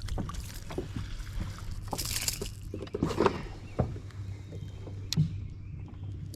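Scattered knocks, clicks and rustling handling noises, with a couple of brief splashy rushes, over a steady low hum, as a freshly hooked fish is brought in on rod and reel.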